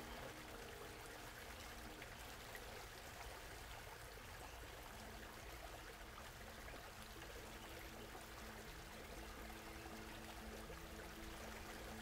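Shallow creek water trickling steadily over a small riffle into a pool, a soft, even rush. Faint background music with long held notes sits underneath; it fades out just after the start and returns from about halfway.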